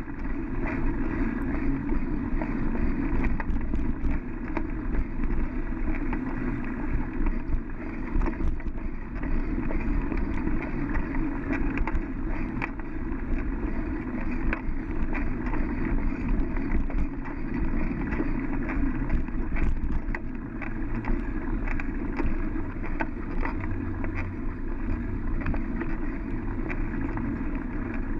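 Bicycle rolling along a sandy dirt road, heard through a GoPro mounted on the bike: a steady, muffled rumble of tyres and wind with frequent small clicks and rattles from the bike.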